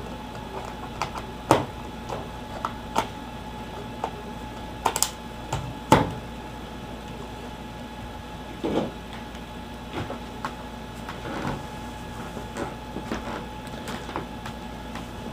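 Scattered clicks and taps of hands on a netbook's plastic case and keys as it is powered back on, the sharpest about 1.5, 3, 5 and 6 seconds in and a duller knock near 9 seconds, over a steady hum.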